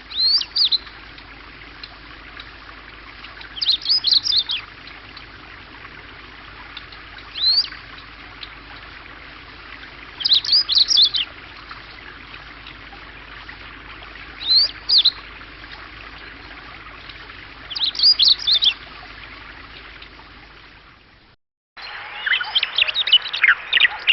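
Wild bird singing short high-pitched phrases, one about every three to four seconds, over a steady background hiss. A little after twenty seconds the recording breaks off and a busier run of song begins.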